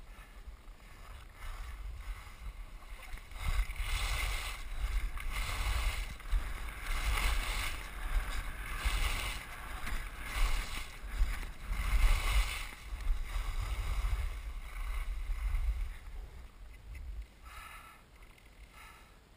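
Hiss of carving turns down groomed snow, swelling with each turn about every second and a half, mixed with wind rumbling on the action camera's microphone. It builds up a second or two in and dies down near the end.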